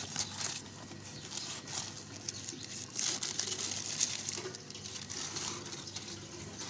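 Cardboard box flaps and paper wrapping rustling and crinkling in short irregular crackles as boxed clay cooking pots are unpacked.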